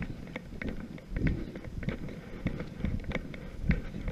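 Footsteps crunching through dry grass and brush at an irregular pace, with wind buffeting the microphone in low gusts.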